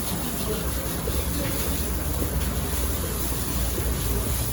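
Steady indoor crowd ambience: faint overlapping voices over a constant low hum.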